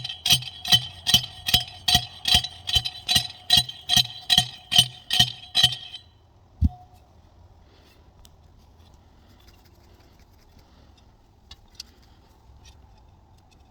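Steel fence T-post being pounded into the ground, a steady run of ringing metal-on-metal clangs about two and a half a second that stops about six seconds in. One dull thump follows shortly after.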